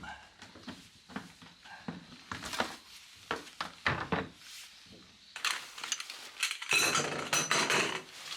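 Objects being handled: a run of light knocks and clinks, then about three seconds of denser rustling and clatter near the end.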